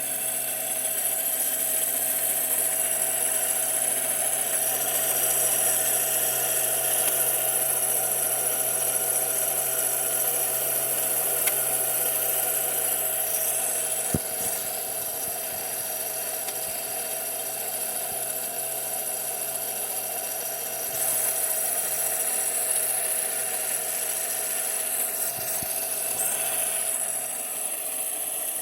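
Piko toy washing machine's small electric motor running steadily, a whirring whine with a rough rubbing, grinding edge. There is a sharp click about halfway through, and the sound grows louder for several seconds past two-thirds of the way.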